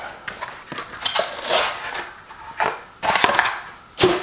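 Cardboard and plastic packaging crinkling and rustling in short bursts as a frying pan is unwrapped and pulled from its box.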